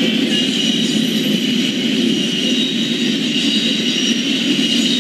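A RoadRailer freight train rolling past: a steady rumble of wheels on rail with a steady high whine above it.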